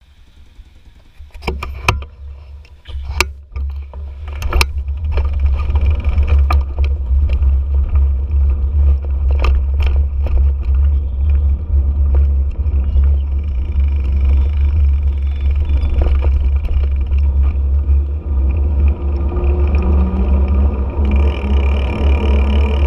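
Vehicle ride picked up by a mounted action camera: heavy, steady wind and road rumble, with several sharp knocks in the first five seconds as a hand handles the camera. Near the end an engine tone comes in and rises slightly.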